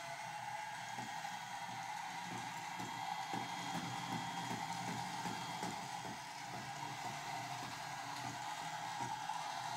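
JetBot robot car's small DC gear motors whining steadily as it drives, with light irregular ticking from its wheels on the wooden floor.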